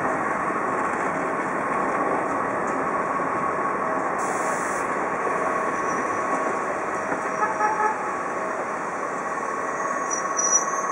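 Passenger train of Corail and Lunéa couchette coaches rolling slowly past, a steady rumbling run of wheels on rail with a thin steady whine over it. A short hiss comes about four seconds in.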